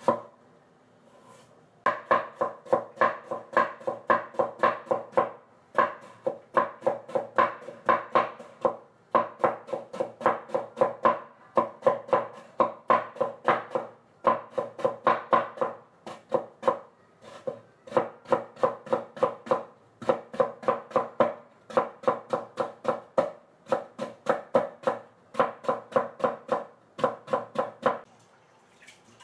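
Chef's knife chopping rapidly through a potato onto a wooden cutting board, cutting it into thin shreds. The knocks come about four or five a second, each ringing slightly, in runs broken by short pauses.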